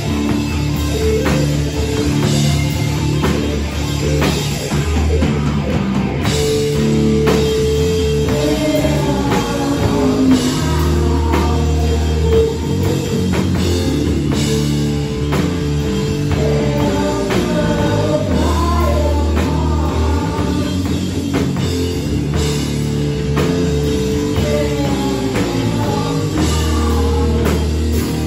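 A live heavy rock band playing loud: distorted electric guitar, bass guitar and a pounding drum kit, with a vocalist singing over it in several stretches.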